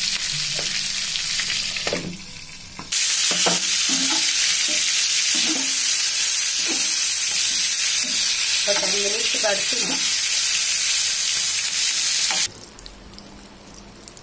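Masala-stuffed green capsicums sizzling in hot oil in a pan, frying until they soften, with a steel spatula scraping and knocking as it turns them. The sizzle dips briefly about two seconds in, comes back louder, and cuts off suddenly near the end.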